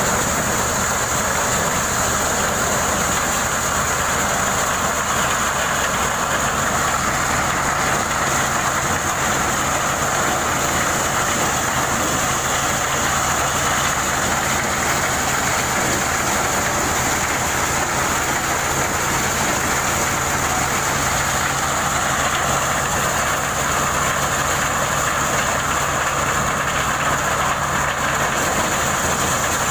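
Corn sheller machine running steadily while threshing whole unhusked corn ears: a continuous mechanical drone with a steady hiss over it.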